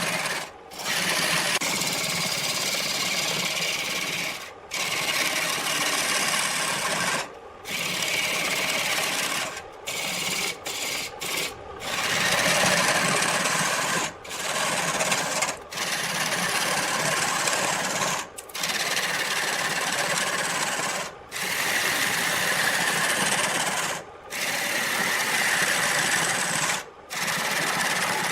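Turning tool cutting spinning wood on a lathe, a harsh continuous scraping in long passes broken by short pauses every two to three seconds as the tool is lifted off.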